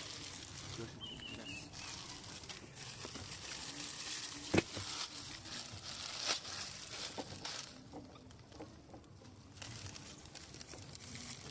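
Water-filled plastic fry bag crinkling and rustling as hands work it open in a basin of water, with a sharp click about four and a half seconds in.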